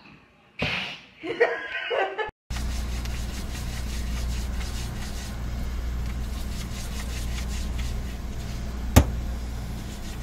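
A brief burst of loud noise and a short wavy voice sound, then a steady low hum from an open refrigerator, with one sharp click near the end.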